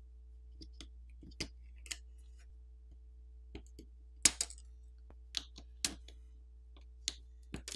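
About a dozen light, irregular clicks of a plastic pry pick on a Samsung Galaxy A24's boards as it pops the battery and flex-cable connectors off their sockets. The sharpest click comes a little past four seconds in.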